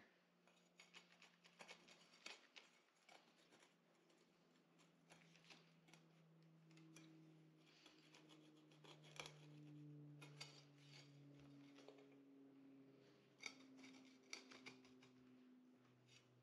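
Very faint: a cordless drill with a diamond hole saw grinding through porcelain tile. It makes a low motor hum that shifts in pitch a few times, with scattered light scraping clicks.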